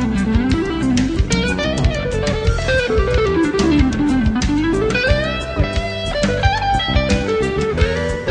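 Live jazz-fusion band playing. A drum kit keeps time under a fast plucked-string lead line, on electric guitar or bass, that sweeps down and back up in rapid runs.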